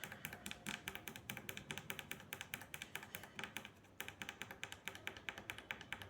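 Tactile micro switches on a circuit board clicking rapidly, several clicks a second, as a finger presses them up and down over and over, with a brief pause just past the middle. The switches have just been sprayed with WD-40, and the repeated pressing works it into the contacts to clean them.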